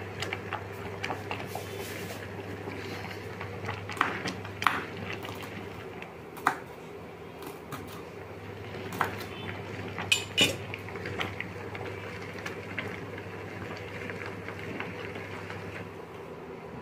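Kitchen knife tapping and clicking on a plastic cutting board as green chillies and herbs are chopped, with a handful of irregular sharp clicks. A steady low hum runs underneath and stops near the end.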